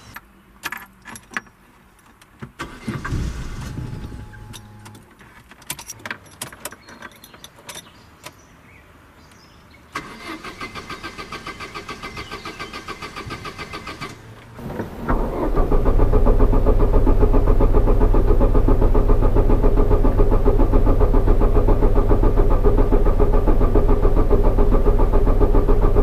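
Clicks and knocks, then a car's starter motor cranking in an even rapid rhythm for about four seconds before the engine catches and runs loudly and steadily.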